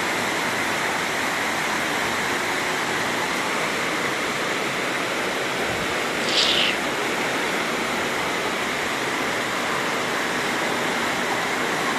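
Fast-flowing flash-flood water rushing steadily. A short high-pitched sound cuts through once, about six seconds in.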